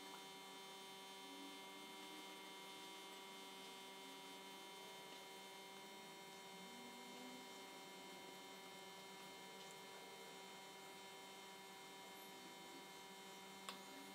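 Near silence: a steady electrical hum made of several fixed tones, unchanging throughout.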